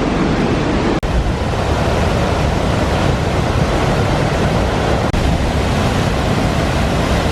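Large waterfall's falling water, a loud, steady rush heard close by. The sound drops out for an instant twice, about a second in and about five seconds in.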